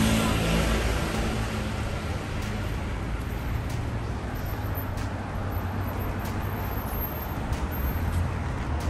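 Road traffic on a busy street: cars driving past with a steady low rumble.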